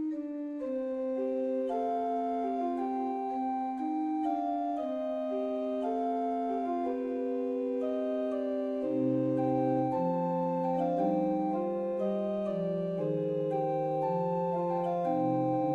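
Slow, calm instrumental music of held organ chords, notes changing a few at a time, with a lower bass part coming in about nine seconds in.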